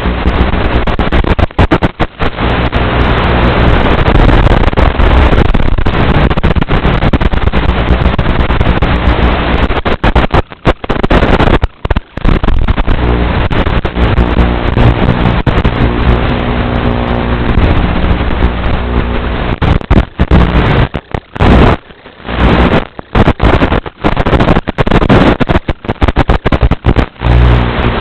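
Buzz of a small H8 quadcopter's motors mixed with heavy wind noise on the microphone. Both cut out sharply in brief gaps several times, most often in the second half.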